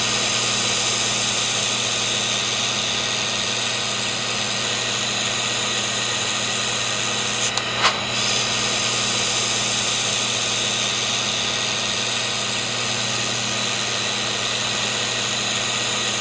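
Handheld fiber laser welding galvanized steel with carbon steel filler wire: a steady hiss with a low hum from the running welding equipment, broken briefly about seven and a half seconds in.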